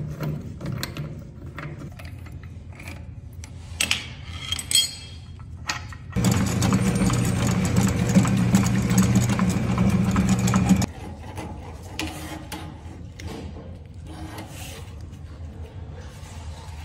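Electric drain cleaning machine running for about four and a half seconds, spinning its cable in the toilet drain line, then cutting off suddenly. Before it come scattered metal clanks and knocks, and after it quieter handling sounds as the cable is worked.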